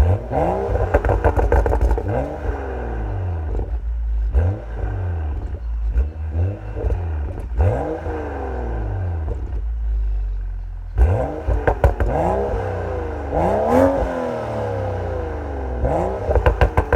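BMW M235i with an M Performance exhaust revved in quick blips, about nine times, each rev rising and falling in pitch, with exhaust crackles and pops as the revs drop.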